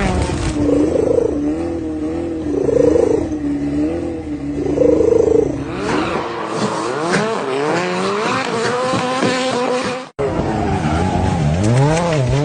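Car engine revving with squealing tyres, as in drifting; the pitch swings up and down again and again, and the sound cuts out for an instant about ten seconds in.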